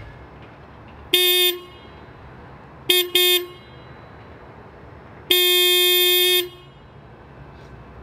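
Toyota GR Yaris's stock single-tone horn: a short beep, then two quick toots, then one longer blast of about a second, each a steady, fairly high-pitched note.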